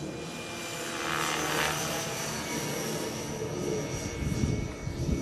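Electric Gaui Hurricane 425 RC helicopter flying overhead: a steady high whine from the motor and drivetrain with the rush of the rotor blades, swelling as it passes about a second in. Near the end, gusts of low rumble from wind buffeting the microphone.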